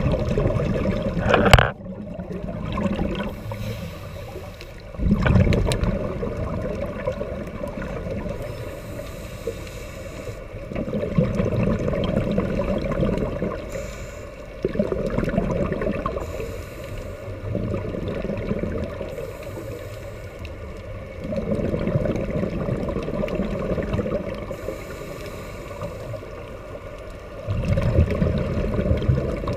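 Scuba diver breathing through a regulator underwater: a swell of bubbling noise every few seconds as exhaled air leaves the regulator, with a quieter hiss between. A single sharp knock about a second and a half in.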